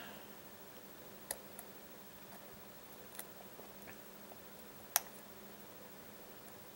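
A few sparse, sharp clicks from a lock pick working the pin stacks of a Baldwin lock cylinder held under tension; the sharpest comes about five seconds in.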